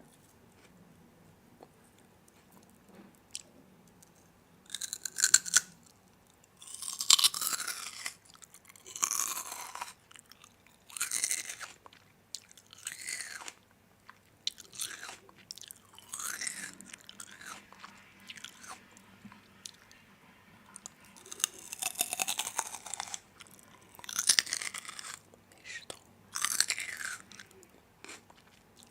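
Crunchy food being bitten and chewed close to the microphone: a series of loud, crackly crunches about every two seconds, starting about five seconds in.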